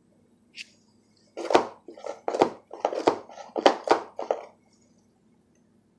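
Plastic trading-card holders being handled: a run of short clicks, knocks and scrapes as the cards are picked up, swapped and set down, bunched between about one and a half and four and a half seconds in.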